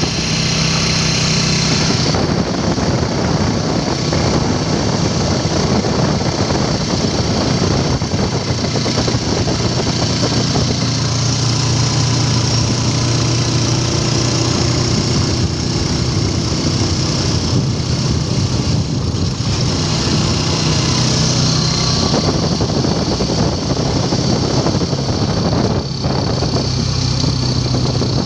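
Motorcycle engine of a tricycle (motorcycle with sidecar) running steadily on the move, heard from the sidecar, with road and wind noise.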